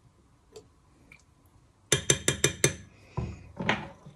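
Metal spoon clinking against a glass measuring cup: a quick run of about six sharp clinks about two seconds in, then a couple of softer knocks.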